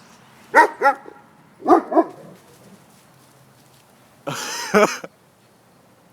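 Dog barking: two quick pairs of short barks in the first two seconds, then a longer, noisier cry about four seconds in.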